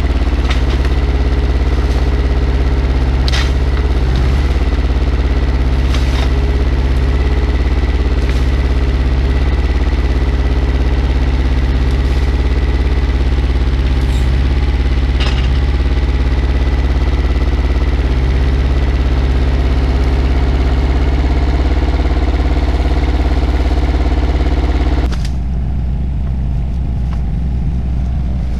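IHI 9VX-3 mini excavator's diesel engine running steadily under hydraulic load while it digs out a tree stump, with a few sharp knocks in the first half. About 25 s in the sound turns quieter and duller.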